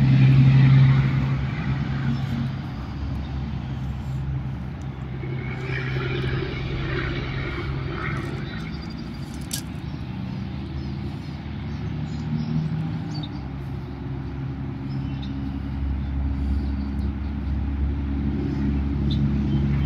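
Road traffic: a steady low hum of passing car engines, growing louder over the last few seconds.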